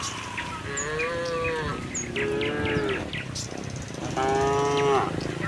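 Cattle mooing: three long moos in turn, the last and loudest about four seconds in.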